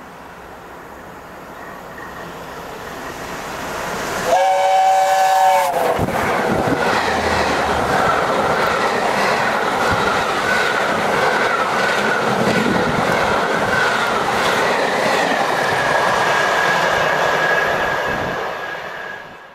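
Steam locomotive LNER A1 Pacific 60163 Tornado running at speed, its rumble growing louder as it nears. It gives one whistle of about a second and a half, the pitch dropping at the end as it passes. Then comes the steady rush and clatter of its coaches going by for about twelve seconds, dying away near the end.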